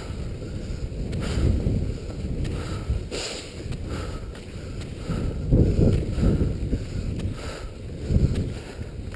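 Wind rumbling on the microphone over skate skis on snow, with a swishing stroke about once a second as the skier pushes off.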